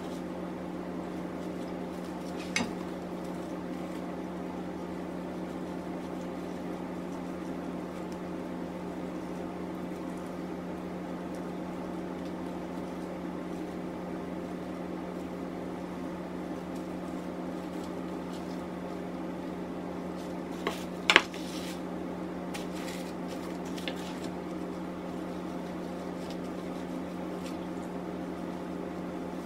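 A steady machine hum, like an appliance or fan motor, with a few sharp clicks of a kitchen knife against a plastic-wrapped cutting board while raw chicken breast is sliced. The loudest click comes about 21 seconds in.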